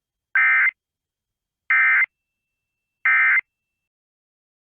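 Emergency Alert System end-of-message signal: three short, identical bursts of SAME digital data tones, a little over a second apart, marking the close of the alert.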